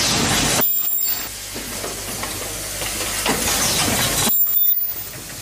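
Automatic assembly and ultrasonic welding machine for magnetic cube toys running, with a steady hissing mechanical noise that drops away sharply twice, briefly.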